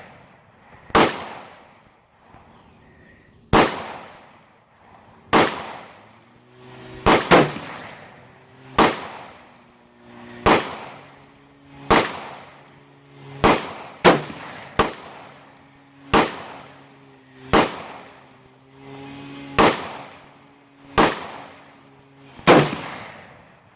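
A string of rifle shots at a shooting range, about sixteen sharp cracks spaced roughly a second and a half apart. Each crack trails off in an echo, and a few shots fall close together. A low steady hum runs underneath through the middle.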